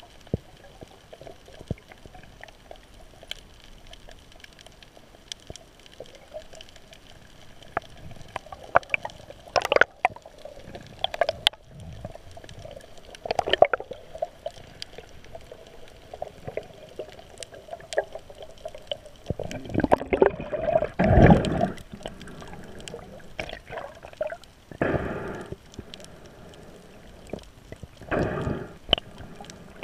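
Underwater sound picked up through a GoPro's waterproof housing: muffled water movement with scattered sharp clicks, and louder gurgling rushes about two-thirds of the way through and again near the end.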